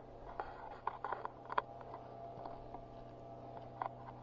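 Faint rustling with scattered light clicks and crackles, the sound of someone moving about with a handheld camera in dry autumn leaves, over a low steady hum.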